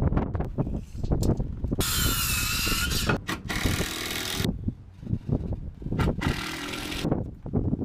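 Lumber being handled: wooden boards knocking and thudding against each other and the dock many times, with a cordless power tool running for about a second, about two seconds in.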